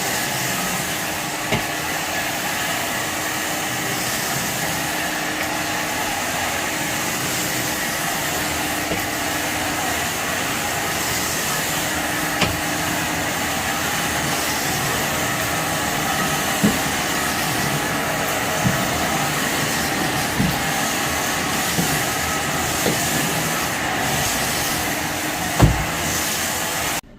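Shark vacuum cleaner running steadily on a carpet thick with pet hair and debris, with scattered sharp clicks and crunches as grit and trash are sucked up. It is switched off suddenly near the end.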